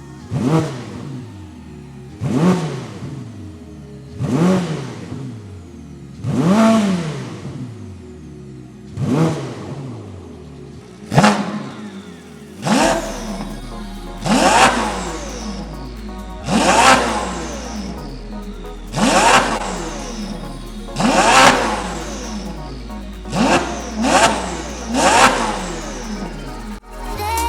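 Ferrari SF90 XX twin-turbo V8 free-revving through a RYFT titanium exhaust with stainless downpipes, close to straight-piped: a series of quick throttle blips, about one every two seconds, each rising sharply in pitch and falling back. Background music with a deep bass line comes in about halfway through.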